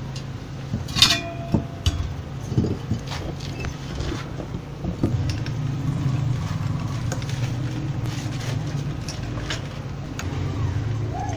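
Spanner clicking and clinking on the bolts of a small DC water pump's head cover as it is unbolted, with one sharp ringing metal clink about a second in. A steady low hum runs underneath throughout.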